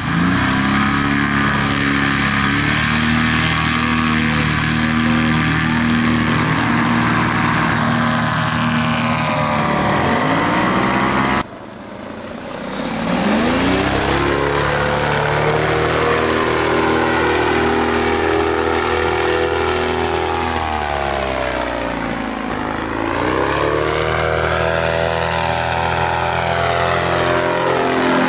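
Paramotor trike engine and propeller running at high power, its pitch sweeping down and back up as it passes. The sound breaks off abruptly a little before the middle, then builds back up.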